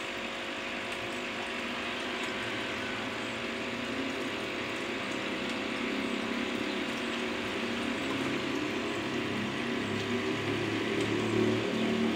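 Steady machine hum, with light water sloshing as a hand moves through a shallow basin of water.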